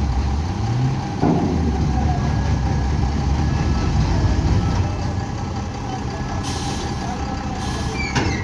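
Heavy diesel construction machinery running steadily, with a sharp knock about a second in and another near the end.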